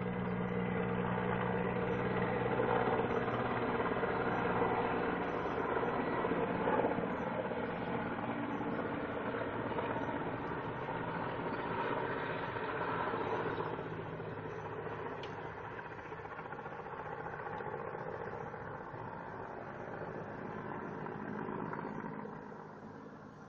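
Distant helicopter flying past, a steady drone of rotor and engine that slowly fades as it moves away, dropping off further near the end.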